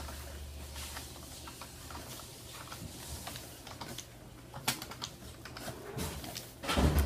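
Scattered light clicks and taps, like keys or a device being handled, over a low steady hum, with a louder knock about two-thirds of the way in and a thump near the end.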